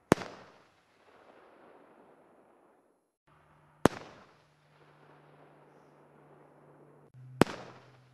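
Three 2-inch Spectra aerial display shells bursting one after another, about three and a half seconds apart: each a single sharp bang trailing off in a rolling echo. A faint low hum sits behind the last two.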